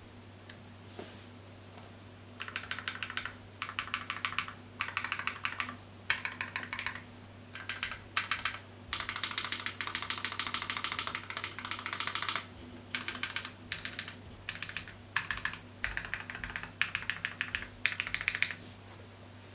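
Fast typing on a mechanical keyboard with lubed Drop Holy Panda tactile switches in a brass plate, capped with PBT keycaps: runs of rapid key clicks in bursts of one to three seconds with short pauses between, starting about two seconds in and stopping just before the end.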